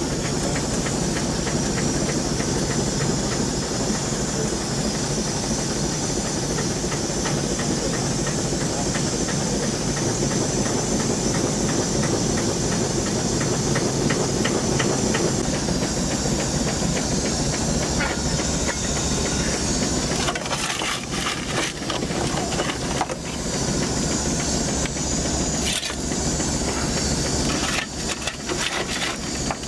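Steam launch's coal-fired boiler and steam engine running: a steady hiss of steam with a fine, fast engine beat under it. From about two-thirds through come a few sharp knocks and clatters.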